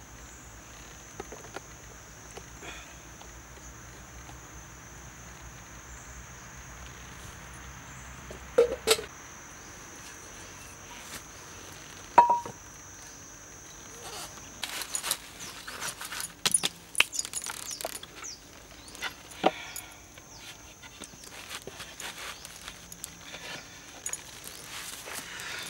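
A steady high insect drone, in the manner of crickets, under a few sharp knocks about nine and twelve seconds in, then irregular clicking and clattering of something being handled for the rest of the time.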